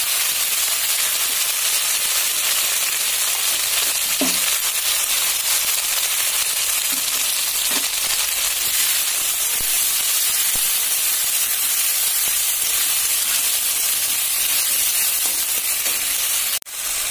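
Chopped tomatoes and spice pastes sizzling steadily in hot oil in a kadai, with a brief break near the end.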